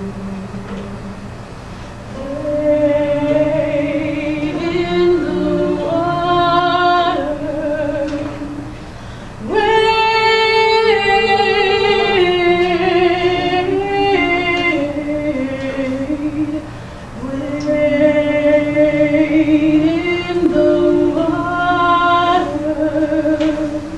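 A woman singing a slow melody in long held notes, in phrases that begin about two, nine and a half and seventeen seconds in.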